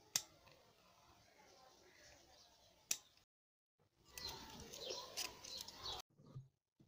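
Quiet hand-tool handling: two sharp clicks a few seconds apart, then, after a brief cut to silence, rustling and small clicks as hands wrap a strip around a PVC pipe, with birds calling in the background.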